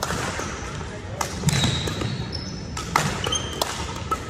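Badminton rally: sharp pops of rackets striking the shuttlecock several times, with sneakers squeaking briefly on the court floor between strokes.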